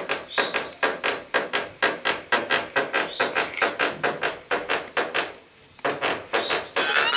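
Rapid rhythmic knocking, about five strikes a second, with a short break about five and a half seconds in.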